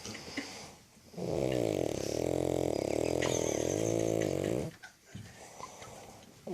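A woman snoring: one long, wavering snore of about three and a half seconds starting about a second in, with quiet breathing before and after it.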